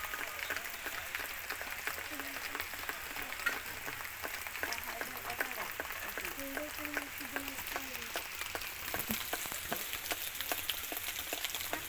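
Heavy rain falling steadily, a dense crackle of many drops striking leaves and surfaces.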